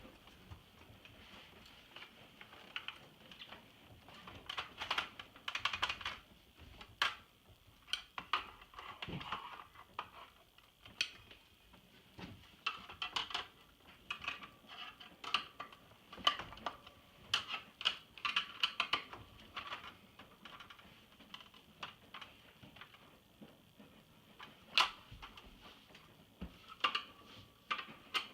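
Irregular clicks, taps and light rattles of small hard parts being handled, coming in clusters with short pauses between them.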